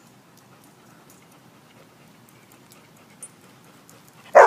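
A dog gives one short, loud bark near the end, asking for help to get its tennis ball out of a bucket. Before the bark there are only a few faint ticks over a low background.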